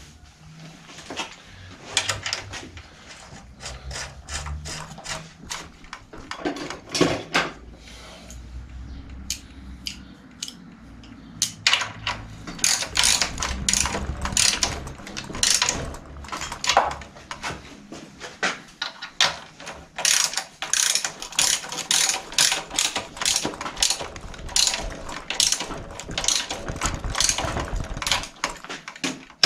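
Ratchet wrench clicking through repeated strokes as a bicycle's rear axle nuts are tightened. The clicks are scattered at first, then come in quick, dense runs from a little before halfway.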